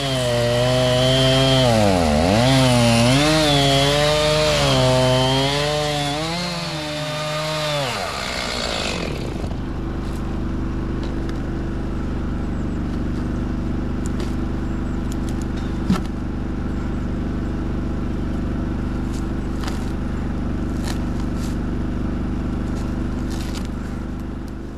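Chainsaw running at high revs, its pitch sagging and recovering again and again as it works through wood, then dropping off about eight seconds in. After that a steady lower engine hum carries on, with a few light clicks and knocks.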